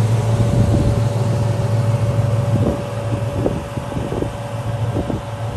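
The 1937 Chevy coupe's ZZ4 350 small-block V8 idling steadily through dual Magnaflow mufflers, a low, even hum that gets a little quieter about three seconds in.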